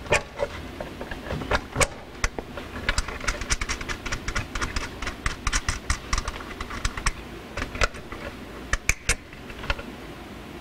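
Many small, irregular clicks and taps of a screwdriver and wire ends working at the screw terminal block of a hot tub's control box, as the heater cables are loosened and pulled free.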